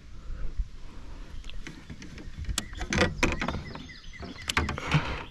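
Irregular knocks, clicks and rattles of a landing net and fishing gear being handled in a kayak while a snakehead is worked out of the net, densest in a burst about halfway through.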